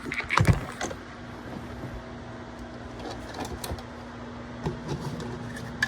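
Plastic clicks and knocks of a Square-D Earli-Gard EGD-4B smoke alarm being handled and pushed onto its mounting bracket, the loudest knocks about half a second in, over a steady low hum. The alarm is not seating because its battery wire is caught.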